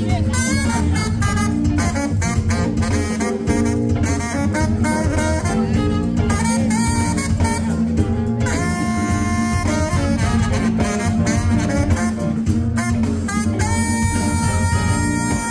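Band music: a quick run of many short notes, then long held notes over a steady bass and drums, the held notes starting about eight seconds in and again near the end.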